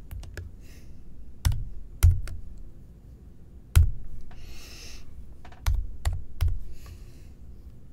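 Typing on a computer keyboard: about ten irregular, widely spaced keystrokes, a few of them sharp and much louder than the others.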